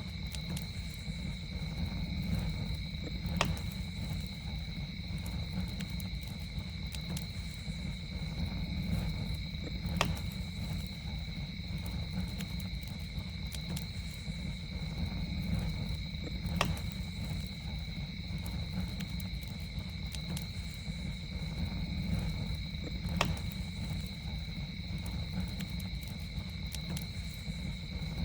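Campfire burning with a low steady rumble and soft crackling, broken by a sharp pop roughly every six or seven seconds. A steady high-pitched trill runs behind it.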